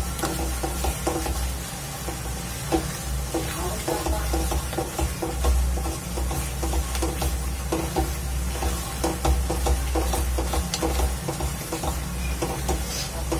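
Silicone spatula stirring and scraping a thick pumpkin burfi mixture in a nonstick kadhai over a gas flame, in repeated irregular strokes. The mixture sizzles faintly as it is cooked down to drive off its moisture.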